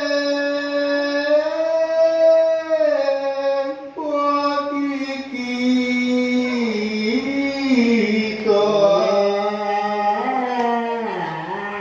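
A group of voices chanting a slow Holy Week penitential chant. They hold long notes and step between a few pitches, with a short breath break about four seconds in.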